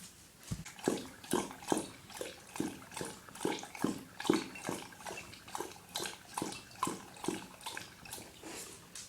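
Dog lapping water from a bowl, a rhythmic run of wet laps about two and a half a second, starting about half a second in and easing off near the end.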